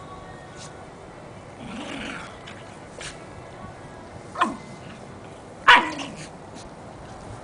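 A Jack Russell terrier and a corgi puppy playing over a toy: a short growl about two seconds in, then two sharp barks, the second louder, near the middle and about three quarters of the way through.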